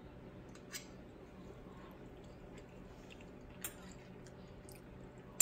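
Faint chewing of a bite of creamy pasta being tasted, with a couple of light clicks, over a low steady hum.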